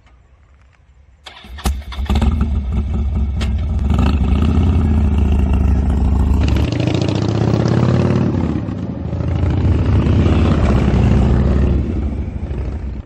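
Harley-Davidson motorcycle engine started: a few sharp clicks as it cranks, then it catches and runs loud, its pitch rising and falling as the throttle is blipped in the second half.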